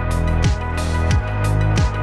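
Background music with a steady beat: a deep kick drum about every two-thirds of a second over a sustained bass line, with sharp high percussion strokes between the kicks.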